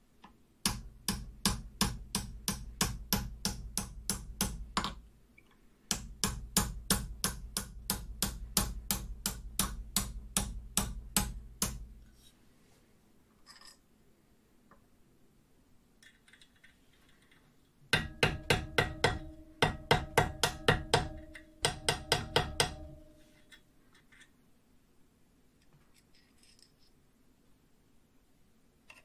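Rapid, even hammer blows, about four a second, on a screwdriver-made awl whose handle stands on steel vise jaws. The blows come in two long runs with a dull thud in each. After a pause a third run rings with a metallic tone.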